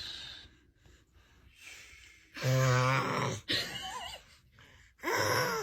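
A man snoring loudly in his sleep: two long snores on a steady low pitch, the first about two and a half seconds in and the second near the end. A short, higher, wavering sound comes between them.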